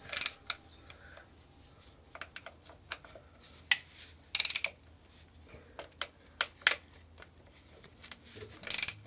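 Hand tools working bolts: short runs of socket-ratchet clicking and metallic clinks of tools being handled. The loudest bursts come about a quarter-second in, about four and a half seconds in, and near the end.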